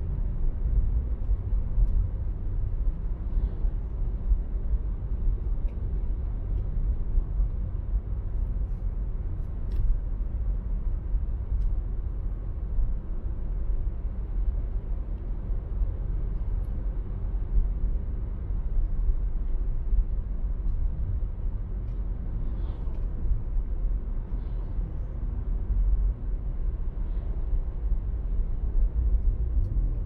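Steady low rumble of a car driving along at speed: road, tyre and engine noise.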